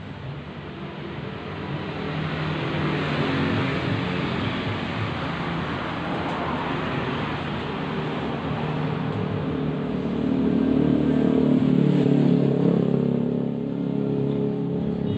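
A machine motor running steadily, its hum shifting in pitch and growing louder towards the later part.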